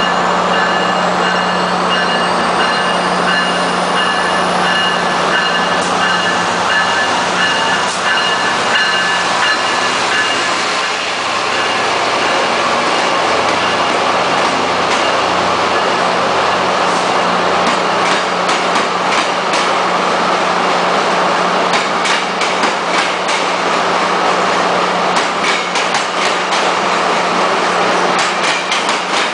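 A Metrolink train led by an EMD F59PH diesel locomotive pulling bilevel coaches past at close range, the locomotive's diesel running with a steady drone. In the second half the coaches' wheels rattle out a quick run of clicks over the rail joints.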